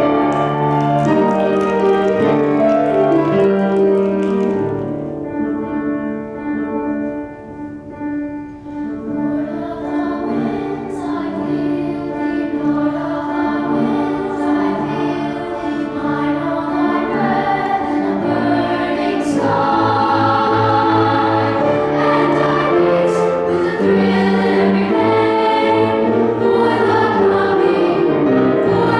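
Elementary-school children's choir singing, dropping to a softer passage about five seconds in and then swelling back to full voice.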